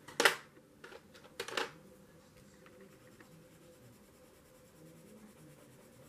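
Two short clatters with a few small clicks between them in the first two seconds: wooden watercolour pencils knocking against each other and a metal pencil tin as one pencil is swapped for another.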